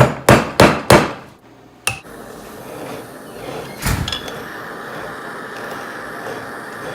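Hammer striking metal: four quick blows in the first second, one more near two seconds and another about four seconds in. From about two seconds on there is a steady rushing noise underneath.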